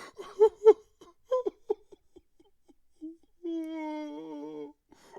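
A person crying: short, broken sobs with falling pitch, then a single held, wavering wail about three and a half seconds in.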